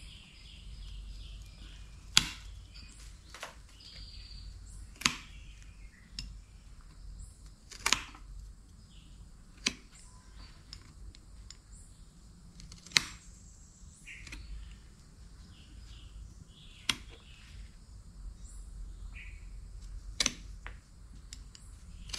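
Bonsai pruning shears snipping through premna branches: sharp single snips every two to four seconds, with small birds chirping faintly in the background.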